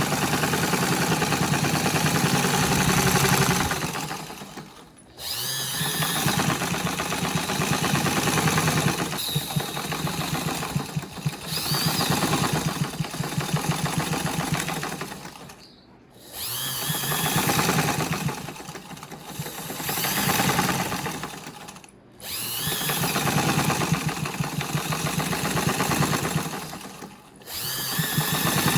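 Electric sewing machine stitching at speed while fitted with a free-motion quilting foot. It runs in long bursts and slows to a stop four times, each time starting up again.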